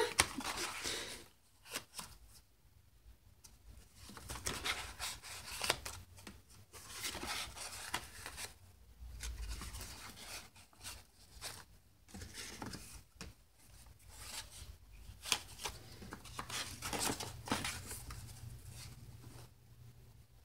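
Leaf-printed paper pages of a boiled book rustling as they are turned and shuffled by hand, in irregular spurts with short quiet gaps, after a sharp tap at the very start.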